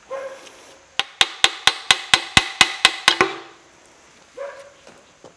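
A ball-peen hammer striking the steel steering knuckle of a GM 10-bolt front axle, about eleven quick ringing blows, roughly five a second, starting about a second in.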